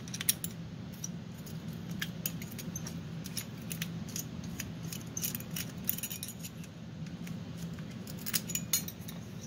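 Small, sharp metallic clicks and scrapes of a thin metal pick working inside a lamp socket's threaded metal shell, scattered irregularly, over a steady low hum.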